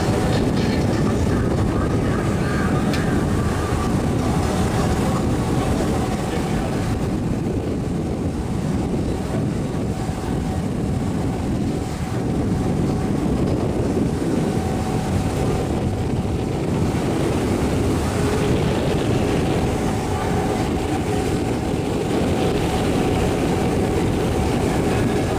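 Steady rumble of a boat under way: its engine running, with wind and rushing water noise and a faint steady hum.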